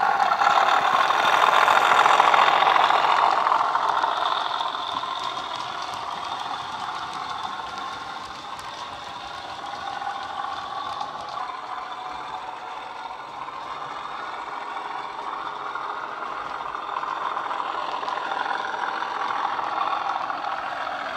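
Model-railway DCC sound decoder in a Bachmann class 37 playing a recorded class 37 English Electric diesel engine running, through the model's small speaker. It is loudest about two seconds in as the locomotive passes close, fades as it draws away, and grows again near the end.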